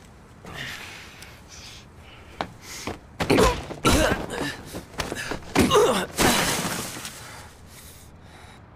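Anime fight sound effects: a series of heavy blows landing, with short pained grunts and cries, then a longer crash about six seconds in.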